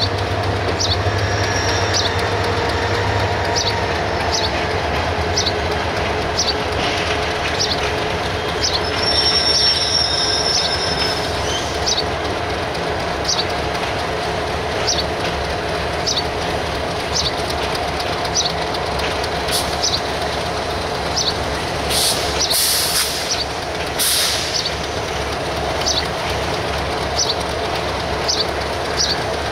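Train running along the track: steady rumble and rattle of the carriages, with a short high squeak of the wheels or running gear about once a second. Brief high hissing bursts come about two thirds of the way through.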